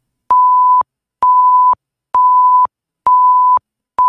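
Quiz countdown timer beeping: a steady, single-pitched electronic beep about half a second long, repeated about once a second, five times, marking off a five-second answer time.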